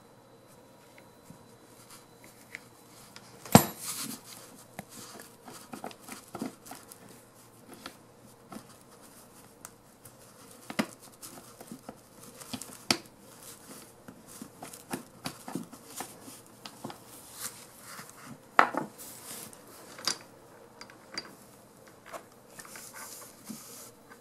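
Small metal parts of a disassembled torque wrench clinking and tapping as they are handled and fitted together, with a sharp metallic clack about three and a half seconds in and another past the middle.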